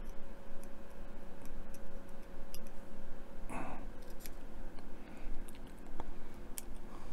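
Fingernails picking and scratching at the backing paper of a model's deck sheet to peel it off: scattered small clicks and scratches, with a brief rustle a little after halfway.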